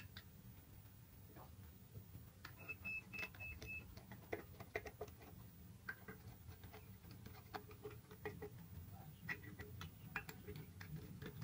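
Faint clicks and ticks of a screwdriver driving screws into the plastic back cover of a horn-loudspeaker driver. About three seconds in, a short run of five quiet high beeps.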